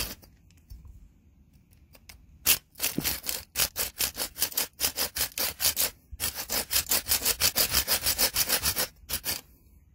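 Folding pruning saw cutting into a dry wooden stick in quick back-and-forth strokes, making the saw cut for a tent-stake notch. The sawing starts about two and a half seconds in, stops briefly around six seconds, then goes on faster until shortly before the end.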